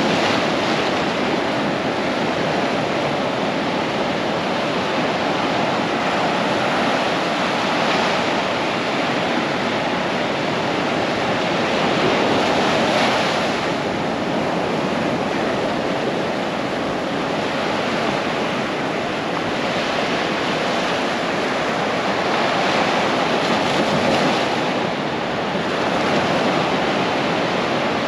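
Pacific surf breaking and washing up the sand at the water's edge: a steady rush of foam that swells louder every several seconds as each wave comes in.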